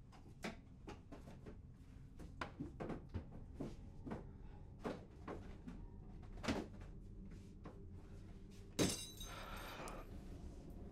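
Rummaging through kitchen cabinets: a run of separate knocks and clunks as cabinet doors and things on the shelves are handled. Then a louder crash about nine seconds in, with a clattering tail that lasts about a second.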